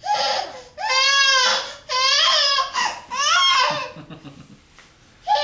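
Baby fussing: four short, high, wavering whiny cries in a row, then a quieter stretch near the end.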